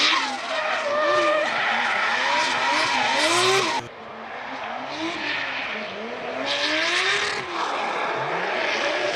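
2JZ straight-six-swapped Toyota GR86 drift car being driven sideways, engine revving up and down with the throttle over hissing, squealing tyres. Just before four seconds in the sound drops abruptly and picks up on another drifting pass.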